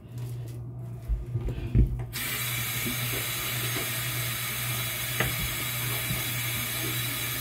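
A few dull knocks, then a bathroom tap turned on about two seconds in, water running steadily into the sink, over a low steady hum.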